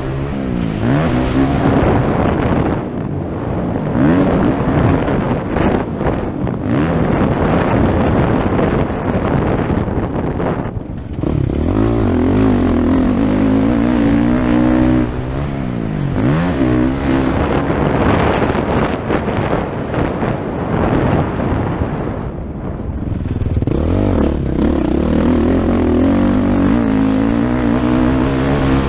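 Motocross bike engine heard from the bike itself, revving hard and backing off the throttle over and over as it is raced, the pitch climbing through the gears and dropping off sharply a few times, most deeply about eleven seconds in.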